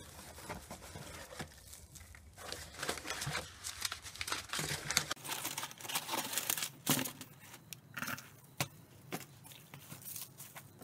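Packaging being handled and unpacked by hand: irregular crinkling and tearing rustles with scattered clicks and taps, busiest in the middle.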